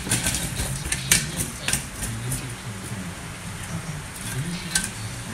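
A few sharp metal clinks and taps from tools and engine parts being handled, loudest about a second in, with another near the end, over a steady low background hum.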